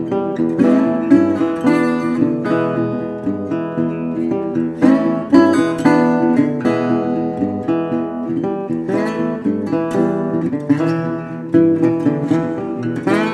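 Intro music: acoustic guitar strumming and picking a steady tune.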